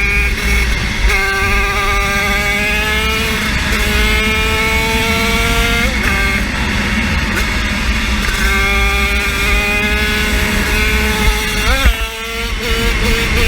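50cc engine run at full throttle, its high-pitched note climbing slowly through long pulls. The note breaks and drops between pulls, with quick sharp flicks of revs about six and twelve seconds in.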